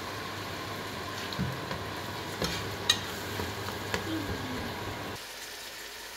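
Onion-tomato masala sizzling in a pot as a little water is added, with a slotted spatula stirring and scraping through it and a few sharp clicks of the spatula on the pot. The sizzle drops lower about five seconds in.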